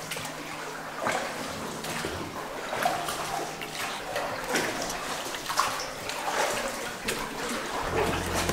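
Oars or paddles of a small rowboat dipping and splashing in the water, a stroke roughly once a second, inside a cave.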